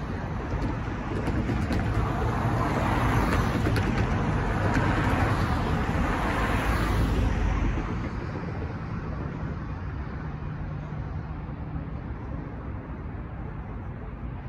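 Road traffic on a city street. A vehicle passes close by over the first several seconds, and its engine and tyre noise falls away about eight seconds in. A lower, steady traffic rumble is left after it.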